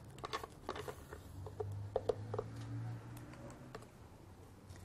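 Light clicks and taps of a metal spoon against a plastic blender jar and bowl as banana batter is poured and scraped out, over a faint steady low hum.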